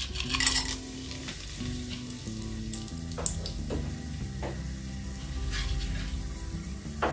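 Whole spices (bay leaf, star anise, cardamom and cloves) sizzling in hot oil in a steel pressure cooker, with a louder burst of sizzle about half a second in as they are tipped in. After that the sizzle runs steadily, with a few sharp crackles.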